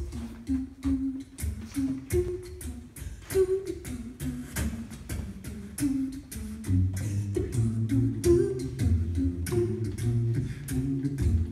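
A cappella vocal trio performing through microphones: beatboxed drum hits under a stepping vocal melody, with a low vocal bass line joining about two-thirds of the way in.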